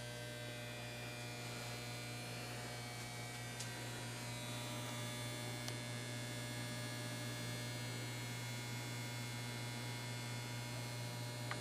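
Steady electrical hum: a strong low tone with a ladder of fainter overtones above it and light hiss, unchanging throughout.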